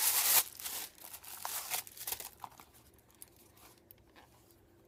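Shoe packaging crinkling and rustling as a new pair of shoes is unwrapped from its box. It is loudest at the start, then thins to a few small rustles that die away about halfway through.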